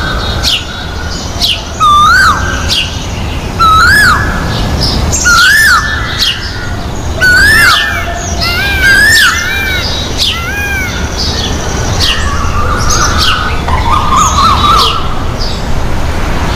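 Indian peafowl calling: a loud call that rises and then falls in pitch, repeated six times about every two seconds, followed by softer, shorter bird calls in the last few seconds.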